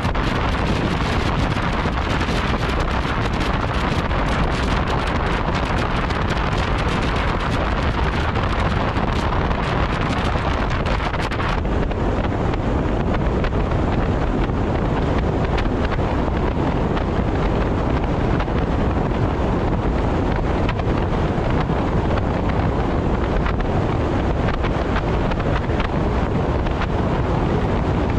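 Car cruising at expressway speed: a steady rush of wind and tyre noise, with wind on the microphone. The higher hiss drops away suddenly about twelve seconds in.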